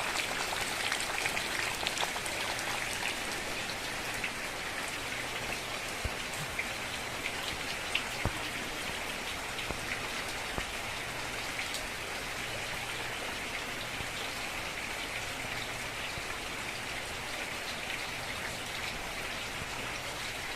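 Steady rain falling, with scattered louder drops clicking here and there.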